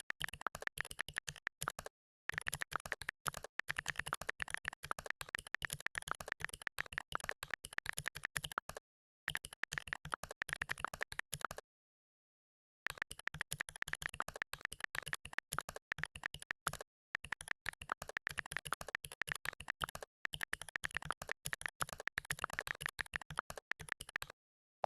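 Fast typing on a computer keyboard: a rapid stream of key clicks, broken by a few brief pauses, the longest about a second near the middle.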